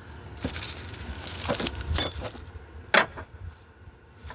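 A few separate clicks and knocks from tools and engine parts being handled during work on the engine, the sharpest about three seconds in.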